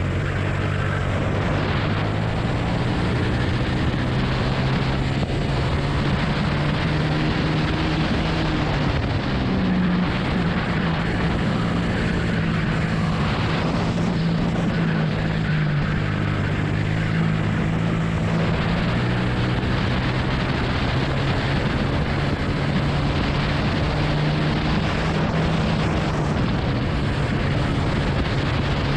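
Single-cylinder 250 cc four-stroke, 20 hp rental kart engine running hard under load, heard close from the kart. Its pitch falls and rises several times as the throttle comes off and back on through the corners, over a steady rush of wind and road noise.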